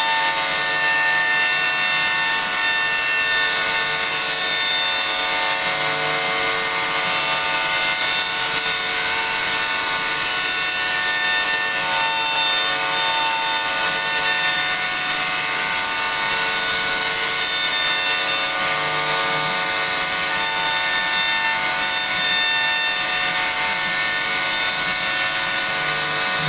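CNC router spindle carving a wooden door panel: a steady high-pitched whine made of many fixed tones over a hiss of cutting. A few lower tones swell and fade every few seconds.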